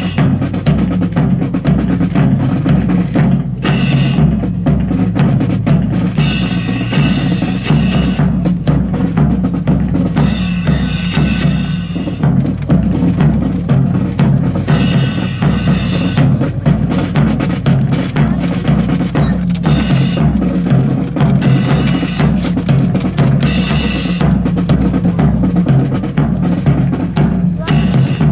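Marching band drums playing a steady marching cadence on bass and snare drums, with bright sharp hits recurring every couple of seconds.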